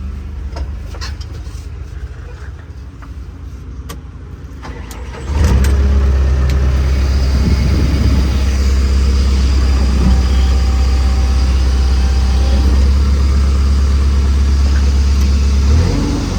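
JCB backhoe loader's diesel engine, quieter at first with scattered clicks, then about five seconds in suddenly much louder and running steadily under power, easing off slightly near the end.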